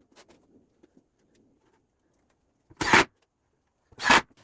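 Power driver sinking screws into wood in two short bursts, near the end, with near silence between.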